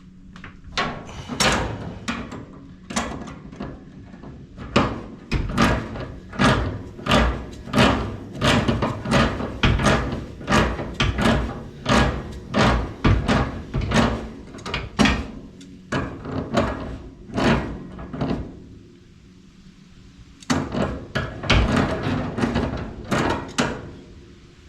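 Repeated scraping and knocking strokes of hand work on a rusty gas pipe fitting, about two a second, with a short pause about three-quarters of the way through.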